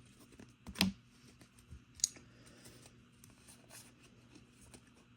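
Trading cards being slid off a stack and flipped one by one: faint scattered clicks and rustles of card stock, with a sharper snap just before a second in and another about two seconds in.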